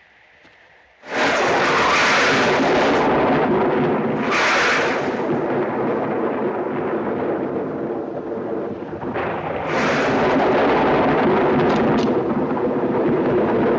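Loud dramatic orchestral score that hits suddenly about a second in with a full, sustained chord and bright crashes. It swells again about ten seconds in, like a music sting closing a scene.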